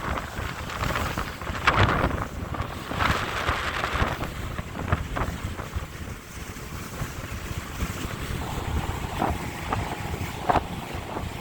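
Wind buffeting the microphone over open water on a boat, with waves and a few sharp knocks.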